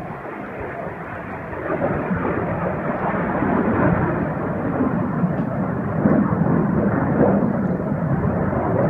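Blue Angels F/A-18 Hornet jets passing overhead, their jet-engine roar growing louder about two seconds in and staying loud.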